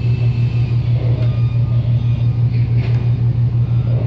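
Ship's engines running, a deep steady hum that pulses evenly about seven or eight times a second, heard on the open deck of a passenger ferry.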